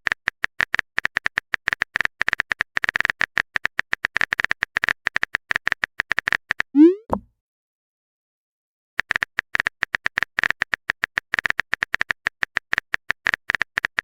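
Phone-keyboard typing sound effect: rapid, uneven runs of small ticking clicks. Each run ends with a short rising pop, the 'message sent' sound, once about seven seconds in and again at the end, with a silent pause of about two seconds after the first.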